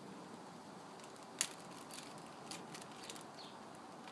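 Faint handling of a plastic zip-top bag and tissue: one sharp click about a second and a half in, then a few lighter ticks and crinkles, over a steady background hiss.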